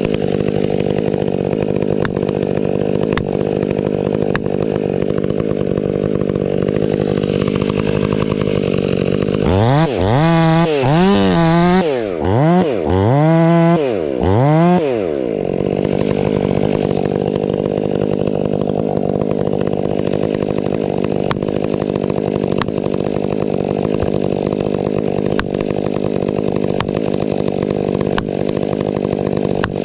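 Husqvarna 500i two-stroke chainsaw cutting steadily under load into a ponderosa pine. About ten seconds in, the engine speed swings up and down several times over about five seconds before it settles back into the steady cut.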